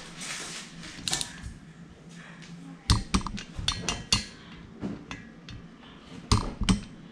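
Irregular metallic clinks and knocks of tools and engine parts being handled on a workbench, the loudest about three, four and six and a half seconds in.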